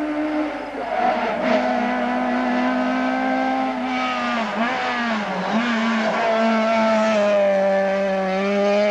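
Rally car engine running hard at high revs as the car drives a tarmac stage towards the camera. The engine note dips briefly a couple of times about halfway through, then holds steady and grows louder near the end.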